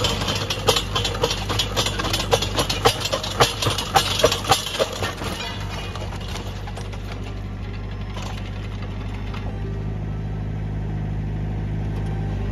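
Tractor engine driving a post-hole auger in rocky ground, with rapid knocking and clattering of the auger bit grinding against stones for about the first five seconds. The auger is then lifted from the hole and the engine runs steadily, its note rising a little near the end.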